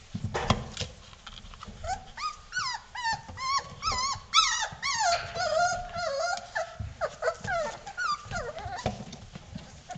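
Four-week-old Vizsla puppies whining and whimpering: a string of short cries that rise and fall in pitch, about two a second, with a few thumps near the start.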